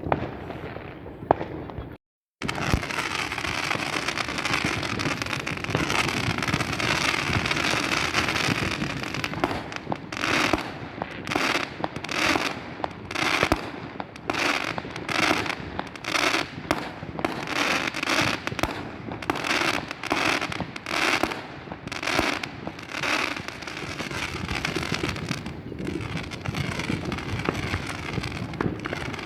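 Fireworks going off: a dense, continuous crackle, then from about a third of the way in a rapid run of bangs at about two a second.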